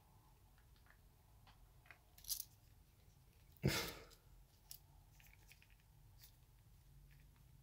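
Parts of a Colt 1908 vest pocket pistol being handled during disassembly: a few faint metal clicks and one louder sharp clack a little past halfway.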